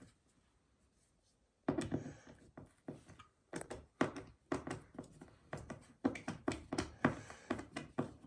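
Repeated clicks and taps of a hand screwdriver driving metal cam-lock dowels into a flat-pack furniture panel, a few per second. They start about a second and a half in, after a brief hush.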